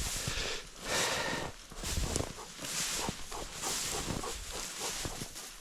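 Yellow Labrador retriever breathing hard and snuffling, in noisy breaths about once a second.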